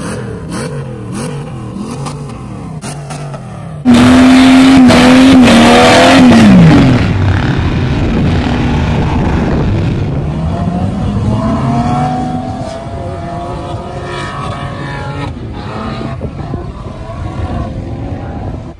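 Off-road 4x4 engines revving hard under load while climbing sand dunes. First come several quick rises and falls in revs. About four seconds in, a very loud engine holds high revs, then drops away near seven seconds. It is followed by an engine note rising steadily as a vehicle accelerates, then fading.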